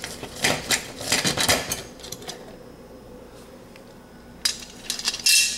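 Metal clinks and scrapes of a nut driver working against an oven's range terminal block and its sheet-metal bracket: a quick run of sharp clicks in the first two seconds, a pause, then more clatter near the end.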